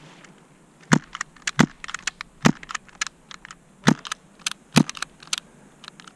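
An irregular run of sharp cracks and snaps, five loud ones among many smaller clicks.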